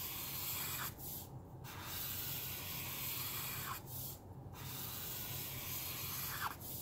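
Chisel tip of a brand-new Caliart alcohol marker rubbing across paper in long back-and-forth strokes, giving a steady scratchy hiss. It breaks off briefly about every three seconds as the tip lifts at the end of a stroke, with a short squeak just before each break.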